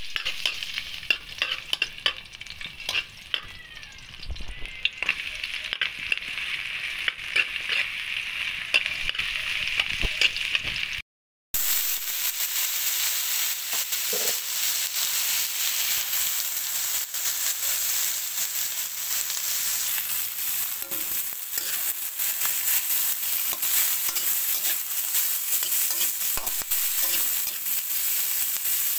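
Garlic sizzling in hot oil in a wok, with spatula scrapes and taps against the metal. After a short break about eleven seconds in, sliced bitter melon (ampalaya) fries with a denser, steady sizzle as a metal spatula stirs it.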